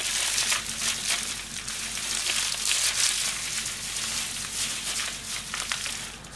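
Thin plastic bags crinkling and being crumpled in the hands as kitchen food scraps are squeezed into a small bag, a dense irregular crackle throughout.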